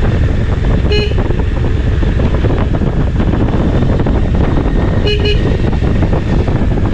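Heavy wind and road rumble on a riding motorcycle, broken by horn beeps: one short beep about a second in and two quick beeps about five seconds in, as the rider sounds the horn on the hairpin bends.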